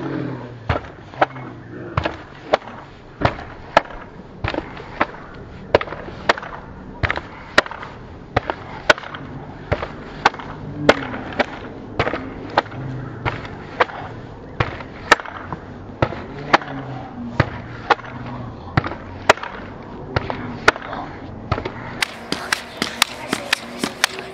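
A pogo stick bouncing steadily on brick pavers, a sharp clack with each landing, about one and a half bounces a second.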